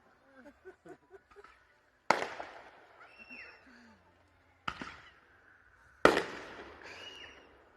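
Fireworks bursting: three loud bangs, about two, four and a half and six seconds in, each trailing off in a fading tail, the first and last the loudest.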